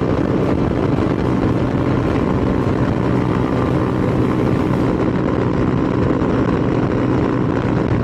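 Motorcycle engine running steadily at cruising speed on an asphalt highway, with wind and road noise.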